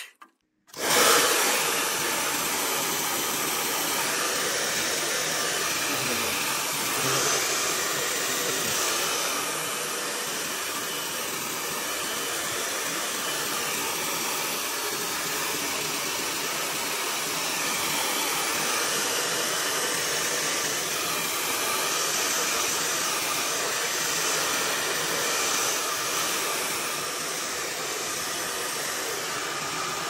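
Handheld hair dryer running steadily, blowing hot air into a frost-covered freezer compartment to melt the ice. It starts about a second in, right after a brief silence.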